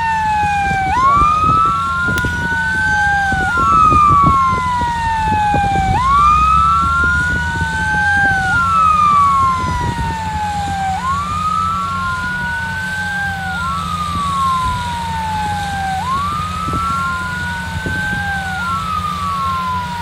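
Airport fire truck siren wailing in a repeating cycle, each one sweeping quickly up and then falling slowly, about every two and a half seconds, over a steady low rumble.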